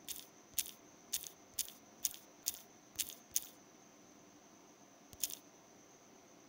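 Keypress clicks from an Android phone's on-screen keyboard: eight quick taps about half a second apart while a word is typed, then one more tap a couple of seconds later.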